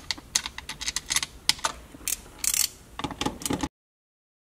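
A run of sharp, irregularly spaced metallic clicks and clinks from hand tools as a T30 Torx bit is readied for the shifter's mounting bolts. The sound cuts off suddenly near the end.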